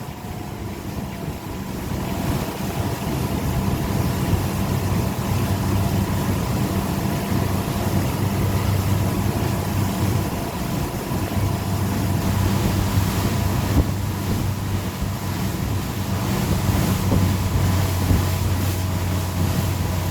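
Tow boat's engine running at a steady cruising speed, a constant low drone, with wind buffeting the microphone and water rushing past the hull.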